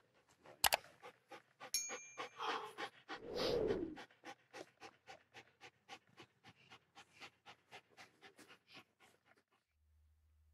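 A working dog panting quickly, about three breaths a second, after bite work. There are two louder breaths a few seconds in, then the panting fades away near the end.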